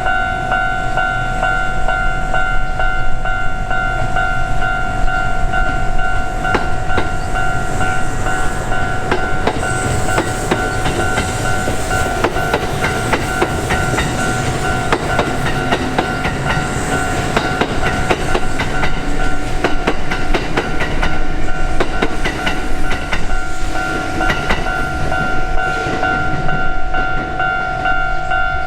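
Japanese level-crossing warning bell ringing steadily while a Kintetsu Osaka Line electric train passes through the crossing, its wheels clacking rapidly over the rail joints for most of the time before the train noise thins out near the end.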